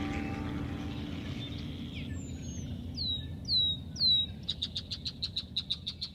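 Bird calls: four quick downward-sweeping whistles, then a fast run of repeated high notes, about six a second. Under the calls, a low drone fades away in the first couple of seconds.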